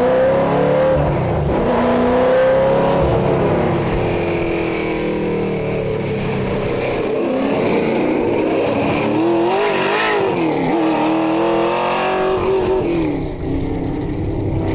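The 1967 Shelby Mustang Group 2 race car's built-up 289 V8, with dual Holley four-barrels and big pipes, running hard on track, its note rising and falling as it accelerates and backs off through corners. About ten seconds in, the pitch climbs and drops quickly.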